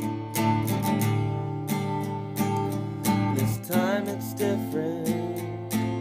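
Acoustic guitar strumming chords in a steady rhythm, about three strokes a second.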